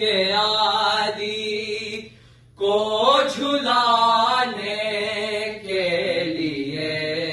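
Male voices singing an Urdu noha (a Muharram lament) unaccompanied, in long drawn-out melismatic notes. The singing breaks off briefly about two seconds in, then resumes.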